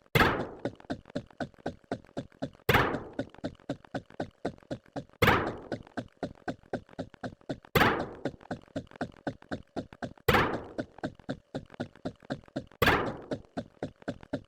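A looped sound effect: a loud thunk repeating about every two and a half seconds, with quick soft ticks, about four or five a second, in between.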